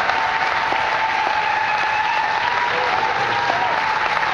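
Audience applauding, a dense steady patter of clapping, with a few voices holding long calls over it.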